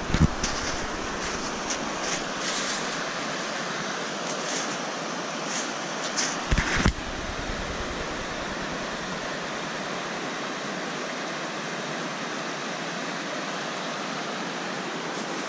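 Steady rush of river rapids running over rocks. Footsteps crunch through snow in the first few seconds, and there is a low thump about seven seconds in.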